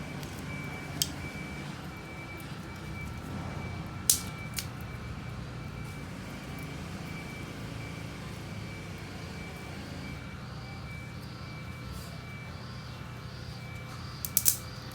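A truck's engine running with its reversing beeper sounding in a steady repeating beep, and a few sharp clicks about a second in, around four seconds in and near the end.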